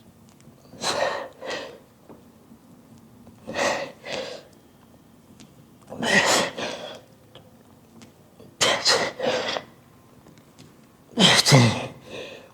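A man breathing hard and forcefully through a set of lifting reps: sharp, hissing breaths in close pairs, five times about every two and a half seconds. The last one carries a low grunt.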